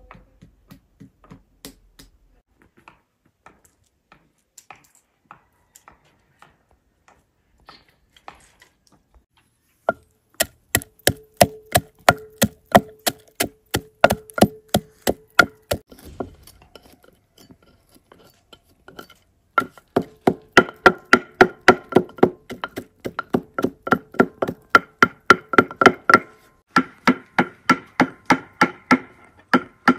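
Wooden pestle pounding in a wooden mortar: steady, hollow knocks about three a second, each with a short ringing tone from the mortar. The pounding starts about ten seconds in after faint soft clicks, pauses for a few seconds, then resumes louder.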